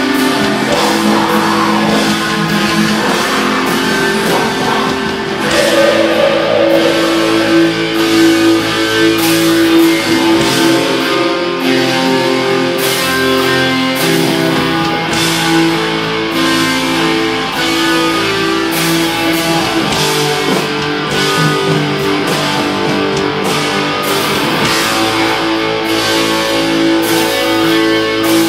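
Black metal band playing live: distorted electric guitars holding long chords over drums and cymbals.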